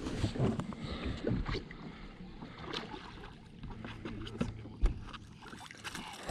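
Irregular knocks, bumps and clicks of people moving about and handling gear and fish in a small fishing boat.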